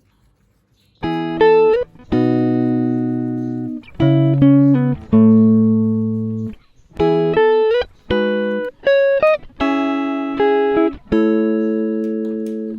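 Instrumental music, starting about a second in: a run of sharply struck chords and short note phrases, each fading away, with a few short slides in pitch.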